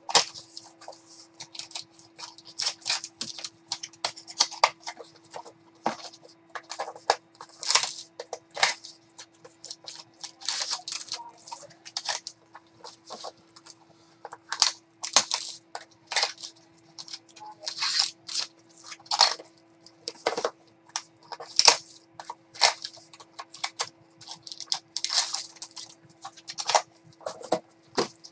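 Baseball card packs (2019 Topps Museum Collection) being opened by hand: a long string of short crinkles, crackles and tearing of the wrapper as cards are slid out and handled, over a faint steady hum.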